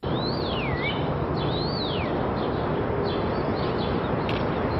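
A bird calling twice, each call a clear whistle that rises and then slides down, with fainter calls after, over a steady rushing noise.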